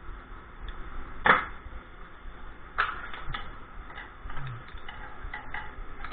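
Metal parts of a Dodge 46RE automatic transmission being handled during teardown: a sharp knock about a second in, another just under three seconds in, then lighter clicks and clinks.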